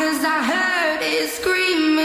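Sped-up pop song: a pitched-up voice sings held notes that slide from one pitch to the next, with little bass underneath.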